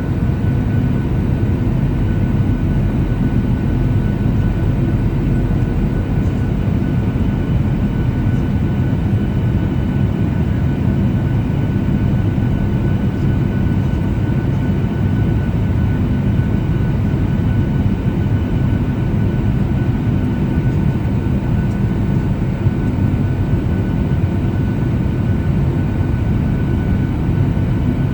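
Steady cabin noise inside a Boeing 737-800 descending on approach: a constant low rumble of airflow and its CFM56-7B turbofan engines, with faint steady whine tones above it.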